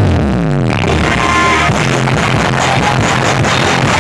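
Very loud music played through a large outdoor sound-system rig, with strong bass; a falling bass glide runs through the first second.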